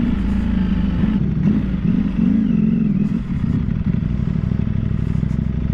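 Ducati Panigale V4 R's V4 engine running at low revs as the bike rolls slowly to a halt, the engine note wavering a little about two seconds in.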